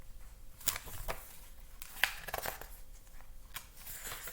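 Paper rustling and a few soft clicks as the pages of a picture book are handled and turned.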